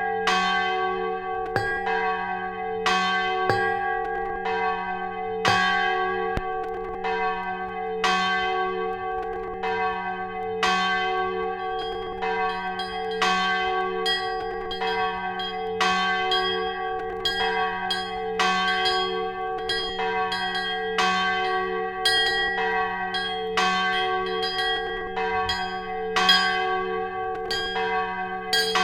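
Church bells pealing: several bells struck one after another at about one stroke a second, each stroke ringing on so that the bells' tones hum steadily between strikes.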